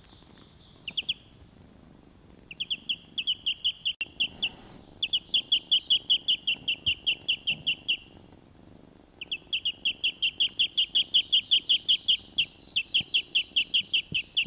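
Duckling peeping: long runs of short, high peeps at about five a second, broken by brief pauses.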